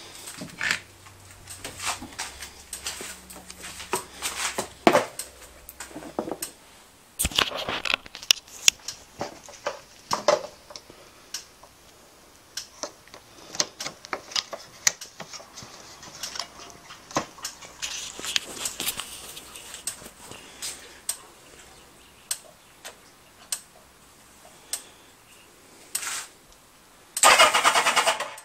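Scattered clicks and knocks from handling jump-lead clamps and parts on a motorcycle. Near the end the electric starter of a Kawasaki Z750 E1 cranks loudly for about a second, a test of the starter freewheel (one-way starter clutch).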